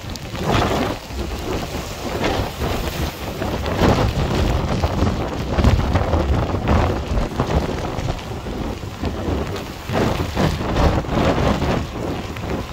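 Storm wind buffeting the microphone in irregular gusts, a heavy rumble rising and falling, over the wash of choppy waves breaking on the shore rocks.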